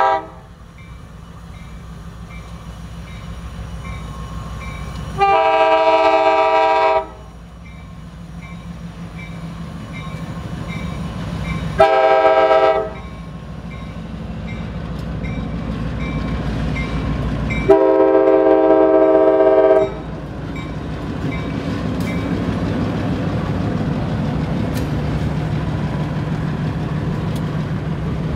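EMD GP15-1 diesel locomotive horn sounding the grade-crossing signal. The end of a long blast is followed by a long, a short and a final long blast. Between the blasts the locomotive's diesel engine rumbles, growing louder as it comes up to the crossing.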